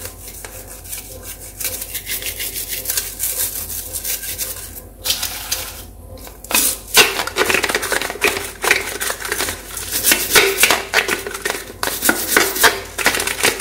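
Nylon bottle brush scrubbing a plastic baby bottle in soapy water: a rapid run of rubbing strokes, quieter at first, then louder and faster from about halfway through.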